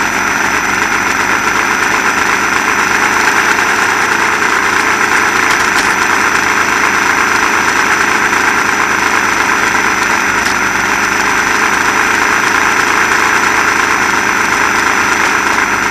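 Lego Porsche 911 RSR RC car's electric drive running steadily, a constant mechanical whir with a thin high whine over it, heard from a camera mounted inside the car.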